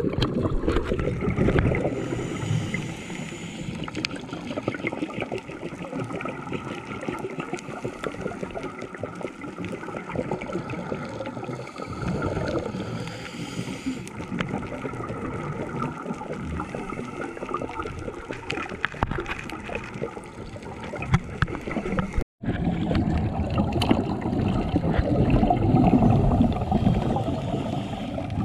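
Underwater sound picked up through a dive camera's housing: gurgling scuba exhaust bubbles over a constant crackle of tiny clicks. It cuts out for a moment about two-thirds through, and the bubbling is then louder.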